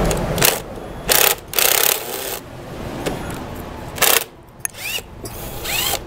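Cordless impact driver run in five short bursts, backing the screws out of an outdoor light's mounting bracket.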